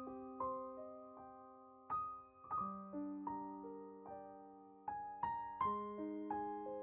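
Soft piano background music: a slow melody of single notes and chords, each struck and left to ring and fade.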